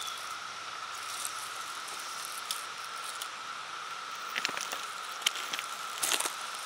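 Dry fallen leaves crackling and rustling as a garter snake crawls through them, with scattered clicks that grow thicker toward the end. A steady, faint high-pitched hum runs underneath.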